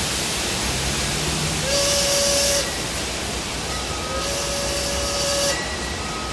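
Ambient passage of an electronic soundtrack: a steady rushing noise wash, with two swells of brighter hiss, each carrying a held mid-pitched tone, a little under two seconds in and again about four seconds in.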